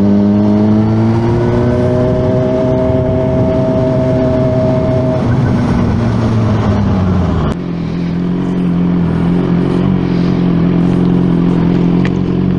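Suzuki GSR 600's 599 cc inline-four engine running steadily under way, its pitch easing down about halfway through as the bike slows. After a sudden change it holds a lower steady pitch.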